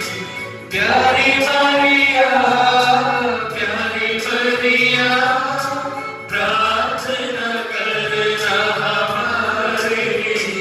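A group singing a devotional hymn with instrumental accompaniment and a steady beat, pausing briefly between phrases about a second in and again about six seconds in.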